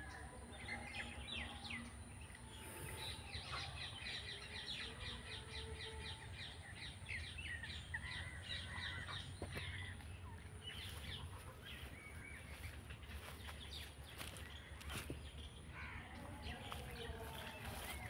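Small birds chirping and calling in the background, a rapid run of chirps during the first several seconds and scattered calls after, over faint outdoor ambience.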